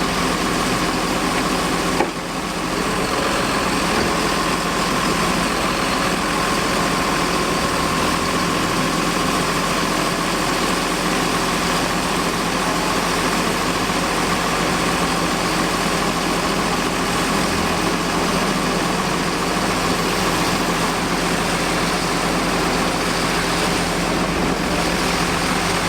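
A car engine idling steadily, with a single short click about two seconds in.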